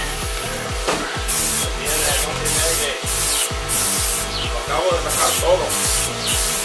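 Compressed-air paint spray gun laying down clear coat: about eight short hissing bursts as the trigger is pulled and released, beginning a little over a second in, over background music with a steady beat.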